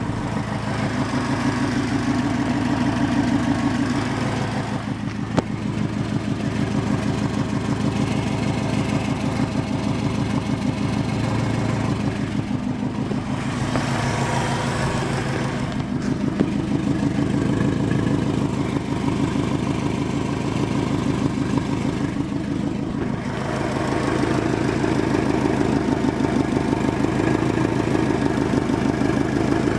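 Subaru WRX flat-four engine with an FP Blue turbo, idling steadily with an even pulsing from the exhaust. The car has an exhaust leak that the tuner is sure of, and which he suspects makes the turbo spool late.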